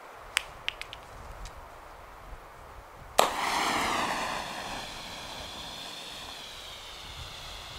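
A decades-old pyrotechnic red distress hand flare being readied and lit: a few sharp clicks, then about three seconds in it ignites with a sudden crack and a loud hiss that eases after about a second into a steady hissing burn, a sign the old flare still works.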